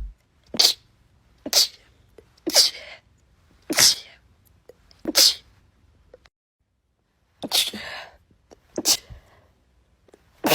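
A person sneezing again and again, about eight sharp sneezes roughly a second apart, some with a quick in-breath before, and a pause of about two seconds midway. The sneezing is set off by an allergy to the cat.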